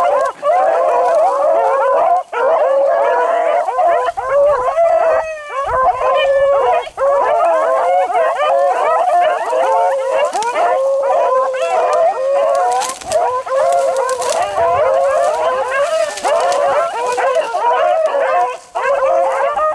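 A pack of beagles baying without a break, many voices overlapping: hounds in full cry running a rabbit's track.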